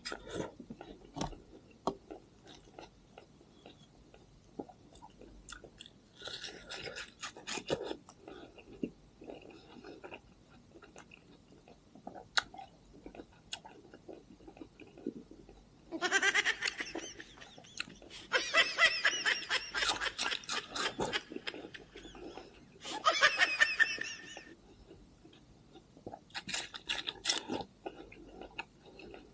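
Close-up biting and chewing of watermelon: wet crunches and mouth clicks. In the second half, three louder stretches of a pitched sound, the longest about three seconds, stand out over the chewing.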